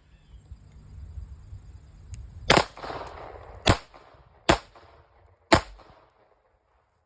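Four 9mm pistol shots, spaced about a second apart, the first with a longer echo trailing after it.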